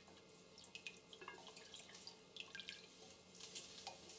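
Faint sloshing and dripping of water stirred with a wooden spatula in a metal pressure cooker, with light scattered clicks.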